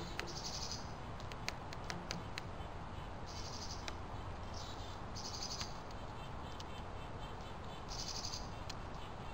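Sharp taps as a northern flicker's bill pecks the suet in a wire cage feeder, several in the first couple of seconds. High, short buzzy trills from small birds repeat every two to three seconds over a steady background hiss.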